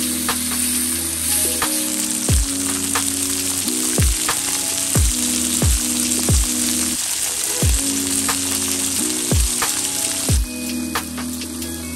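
Food sizzling as it fries, under background music with a steady deep drum beat. The sizzling cuts off abruptly near the end, leaving only the music.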